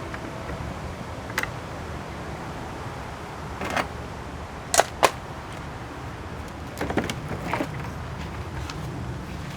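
Scattered sharp metallic clicks and clanks from pliers working bolts on a push mower, two loud ones close together about halfway, over a steady low rumble.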